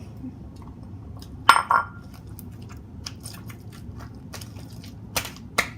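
A utensil clinks against a mixing bowl about a second and a half in, a ringing clink followed by a second knock. Scattered small sticky clicks follow as slime is stirred, with two sharper clicks near the end.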